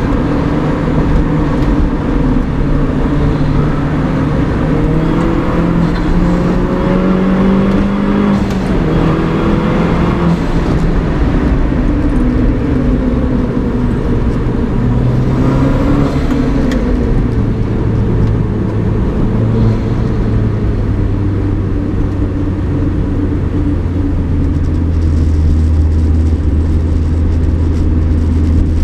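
Mini R56 John Cooper Works' turbocharged 1.6-litre four-cylinder engine under way, breathing through a DOS cold air intake: revs rise and drop several times through the first half, then settle into a steady low drone for the rest.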